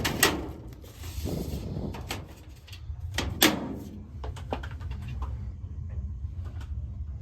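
Two loud sharp knocks, one just after the start and one about three and a half seconds in, with a few lighter clicks, over a steady low rumble.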